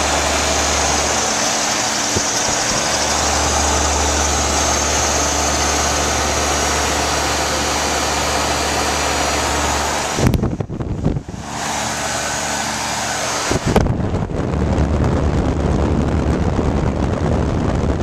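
1980s Carrier Round One heat pump outdoor unit running: a steady rush of air from its fan over a low, even hum. The sound drops out briefly a little past halfway, then comes back.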